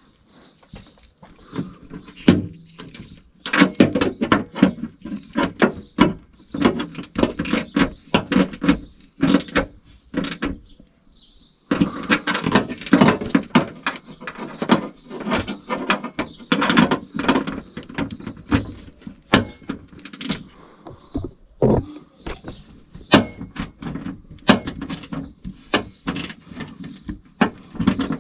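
Hand working inside a car's tailgate panel at the boot lid handle mounting: a dense, irregular run of clicks, knocks and rattles of metal and plastic parts, with a brief pause a little after halfway.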